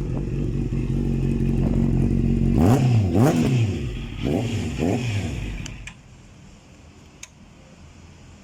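Honda CB650F's inline-four engine idling, then revved in four quick throttle blips, the first two the highest and loudest, before the engine shuts off about six seconds in.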